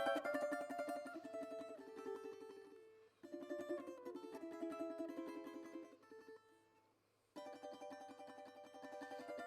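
Instrumental background music on a plucked string instrument, notes picked in rapid repeats. A phrase fades out about three seconds in and a new one starts, fades almost to silence around six to seven seconds, then the playing resumes.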